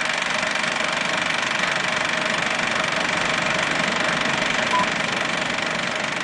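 A steady mechanical running noise with a fast, even rattle, unchanging throughout.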